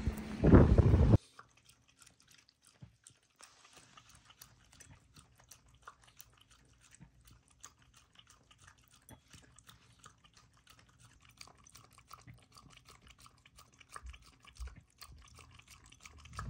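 A Shiba Inu lapping water from a bowl: a long run of quick, irregular wet tongue laps and small splashes. It opens with about a second of loud noise that cuts off abruptly.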